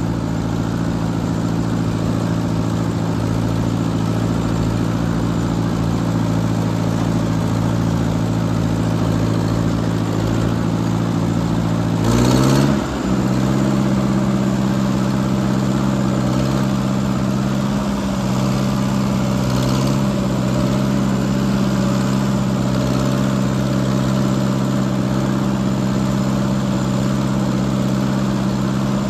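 Old Ford tractor engine running steadily under way, heard close up from the tractor itself. About twelve seconds in there is a short rush of noise and the engine note dips, then settles into a slightly different steady note.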